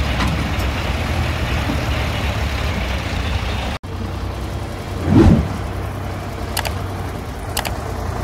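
Sonalika DI 734 tractor's diesel engine running steadily while pulling a trailer, with a brief dropout a little before halfway and a short, louder low rumble about five seconds in.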